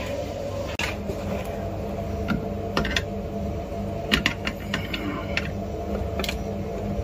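A screwdriver clicking against the metal terminal screws of a contactor in an oven's control panel: several separate sharp clicks over a steady low hum.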